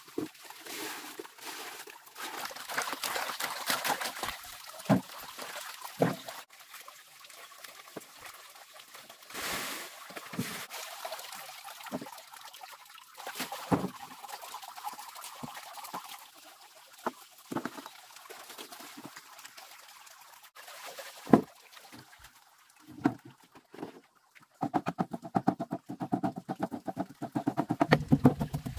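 Fresh turmeric roots being scrubbed by hand in a plastic basin of water, with splashing and trickling. In the middle come separate knife cuts through the roots, and from near the end a steel knife chops rapidly and steadily on a wooden board, mincing the turmeric.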